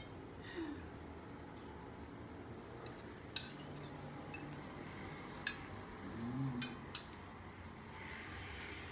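Forks clinking and scraping on ceramic plates as people eat, with about ten short, sharp clinks scattered through.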